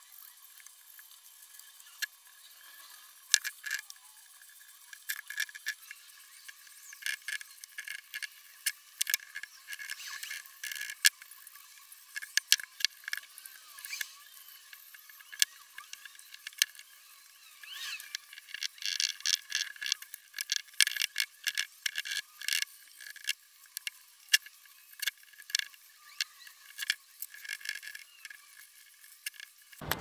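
Paintbrush stroking and dabbing wood stain onto a wooden birdhouse: a run of short, irregular bristly scrapes and clicks, thin and high with no low end. The strokes come thickest about two-thirds of the way in.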